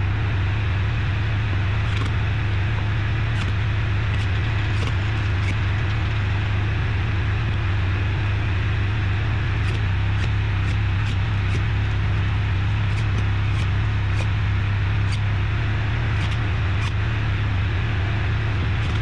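A vehicle engine running steadily with a strong low hum, and a few faint ticks over it.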